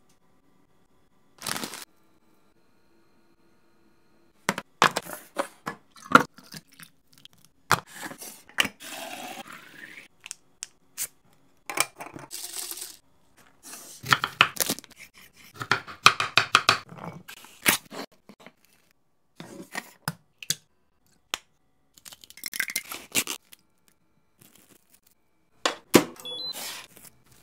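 Close-up kitchen handling sounds from making and packing a lunchbox. Sharp clicks and taps come with stretches of rustling and crinkling. After a single short noise, they begin in earnest a few seconds in and continue in irregular bursts.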